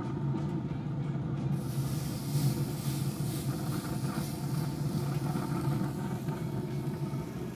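Ribeye steak sizzling on the hot raised-rail grill grates of a Grilla Grills Silverbac pellet grill, the hiss starting about one and a half seconds in as the meat goes down. A steady low hum runs underneath.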